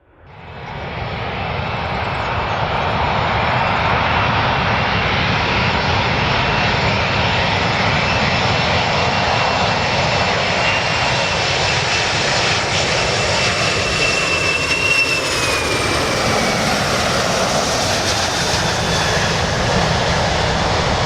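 Airplane engine noise: a loud, steady rush that fades in over the first couple of seconds and carries faint whining tones, one of which slides down in pitch about three-quarters of the way through.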